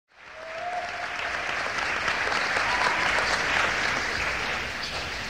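Concert audience applauding, fading in over the first half second and then holding steady.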